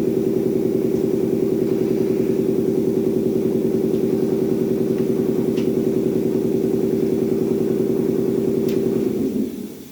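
Machine motor of a two-head PVC window welding machine running with a steady hum, winding down and stopping about nine seconds in.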